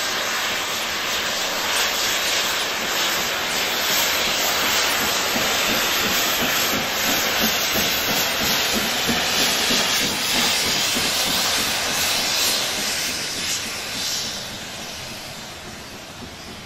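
LMS Stanier 'Princess Coronation' Pacific steam locomotive blowing off from its safety valves, a loud, steady hiss of escaping steam that shows the boiler is at full working pressure, as the train passes. The hiss starts to fade near the end.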